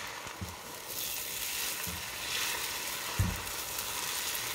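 Beaten eggs sizzling in hot oil in a frying pan while a spatula scoops and pushes them around, the sizzle showing the pan is hot enough. A few soft taps and one sharper knock about three seconds in, the spatula against the pan.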